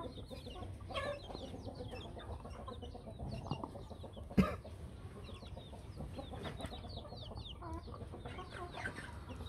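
A flock of young chicks peeping, many short high chirps overlapping without pause. A single sharp knock sounds about four and a half seconds in.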